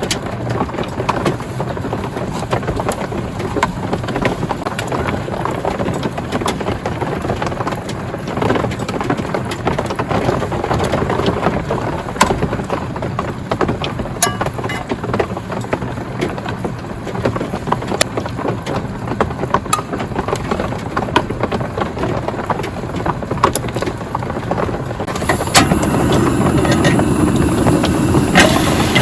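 Steady rain on a tarp, with scattered sharp clicks through it. The sound grows louder and fuller about 25 seconds in.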